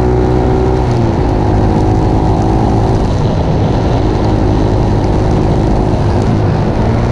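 A road vehicle's engine running steadily while driving at speed, with heavy wind and road rush over the microphone. The engine note shifts a few times.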